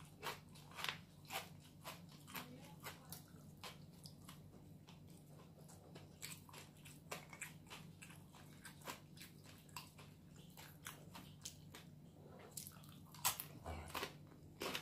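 A person chewing crunchy mouthfuls of crispy fried chicken: a run of short, sharp crunches, sparser in the middle and coming thick again near the end.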